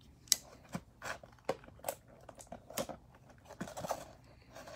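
Irregular light taps, clicks and crinkles of hands handling and turning a shrink-wrapped cardboard trading-card blaster box.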